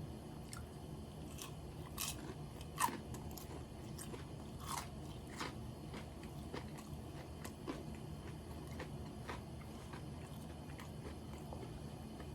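Close-miked eating of karaage (Japanese fried chicken) and rice: wet chewing with irregular crisp crunches and bites, the sharpest about three seconds in.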